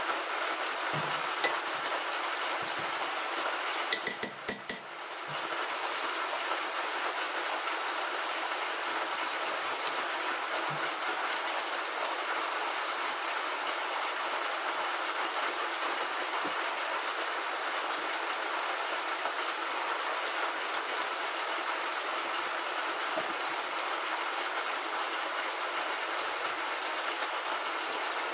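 Torque wrench on cylinder head bolts clicking: a quick run of about four sharp metallic clicks about four seconds in. A steady rushing background noise runs underneath, with a few faint ticks.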